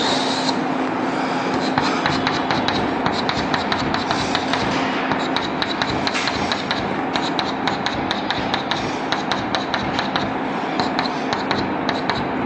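Chalk on a blackboard: a short scrape at the start, then many quick, irregular taps as small plus signs are marked inside a drawn circle. A steady low hum runs underneath.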